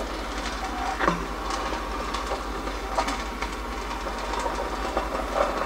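West Bend Stir Crazy electric popcorn popper running, its stirring rod sweeping unpopped kernels across the heated plate: a steady rattling scrape with scattered small clicks over a low hum. The kernels are still heating and none are popping yet.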